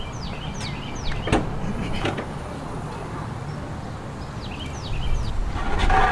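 A bird repeatedly chirping in short falling notes, while the rear hatch of a Chevy HHR is unlatched and lifted with two sharp clicks a little over a second apart. Near the end comes a louder rustling scrape as equipment is pulled from the cargo area.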